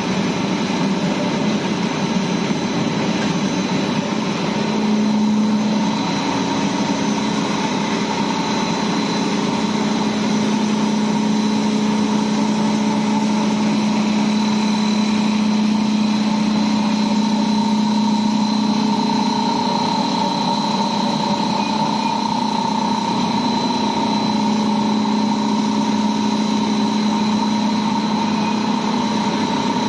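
A 15 t/h biomass-fired steam boiler plant's machinery running: a loud, steady mechanical hum with several steady tones in it. A low tone strengthens about five seconds in and holds.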